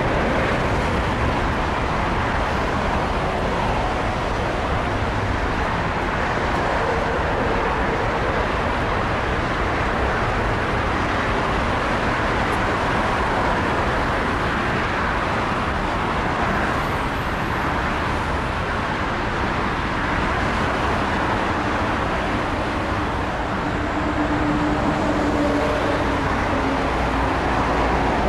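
Boeing 747-8's four GEnx-2B turbofans running at taxi power: a steady, even jet rumble and hiss with no rise in thrust.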